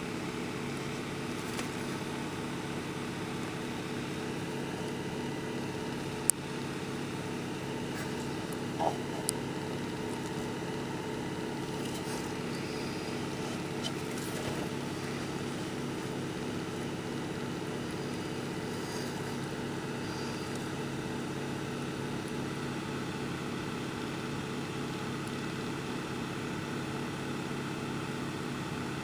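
A steady low hum made of several level pitches, with a few light clicks about six and nine seconds in.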